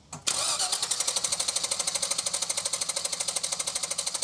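A 5.7 L small-block V8 being cranked over by its starter in an even, rapid rhythm, starting just after a short silence, without catching. The no-start comes from too little fuel pressure, about 15 psi where these Vortec engines need around 55.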